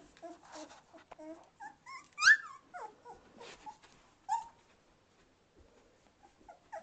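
Two-and-a-half-week-old Samoyed puppies whimpering and squeaking in short high calls that bend up and down, with one loud rising-and-falling squeal about two seconds in. The calls thin out after about four and a half seconds.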